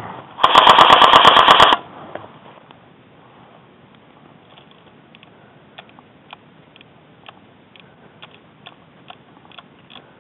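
Airsoft gun firing one loud full-auto burst of about a dozen rapid shots, lasting just over a second and starting about half a second in. Faint, scattered clicks follow.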